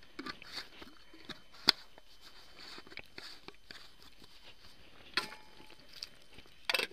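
Handling noise of camp gear: the plastic cap of a water bottle being handled and screwed on, with sharp clicks and rustling of dry leaves, and near the end a short clatter as a metal lid goes onto a camping pot. The loudest is a single sharp click early on, with another clatter about five seconds in.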